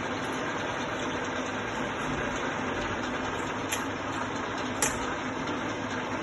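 675P milling machine running with no cutter fitted, its head traversing back and forth under power feed: a steady mechanical hum of motor and gearing with a steady tone in it. Two sharp clicks a little past the middle, the second louder.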